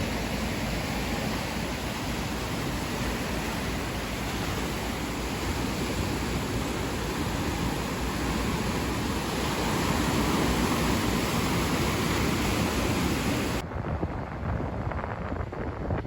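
Steady, even rushing noise with no distinct events. It cuts off abruptly about thirteen and a half seconds in, leaving a quieter, duller rushing.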